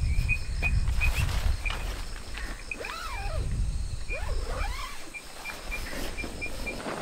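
Night insects chirping in short, even pulses, about four a second, with two rising-and-falling animal calls a few seconds in and a low rumble during the first few seconds.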